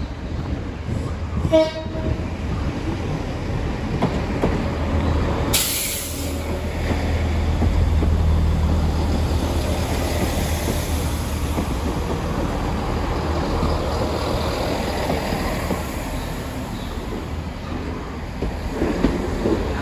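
A Class 166 Turbo diesel multiple unit standing at the platform with its engines running, a steady low diesel rumble. A brief high-pitched note sounds about a second and a half in, and a sharp hiss about five and a half seconds in.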